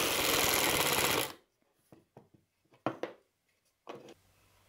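Cordless driver running a screw into plywood with a rapid, steady rattle that cuts off about a second in. A few light wooden knocks follow as the part is handled.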